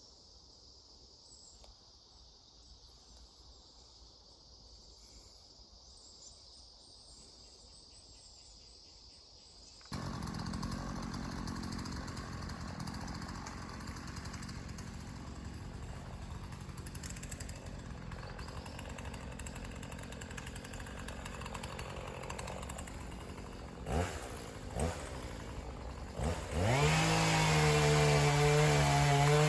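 Insects trill steadily and faintly, then, after an abrupt change about a third of the way in, a chainsaw engine idles, is blipped a couple of times, and near the end revs up loud to full throttle.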